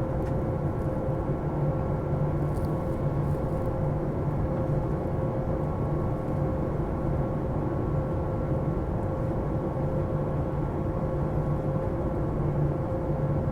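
Airliner in its climb after takeoff: a steady jet-engine and airflow drone with a few constant hums over it.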